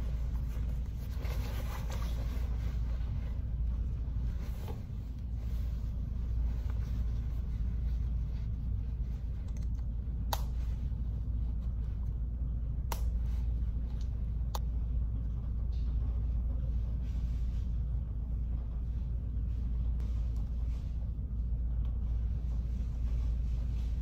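Steady low room rumble, with cloth rustling near the start as a lab coat is handled and three sharp clicks a little past the middle.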